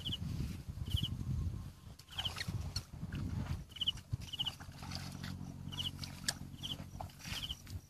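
Muddy paddy water sloshing and splashing as someone wades and gropes with their hands in a shallow channel, with a short high triple chirp from a small animal repeating about once a second. A steady low hum comes in about halfway through.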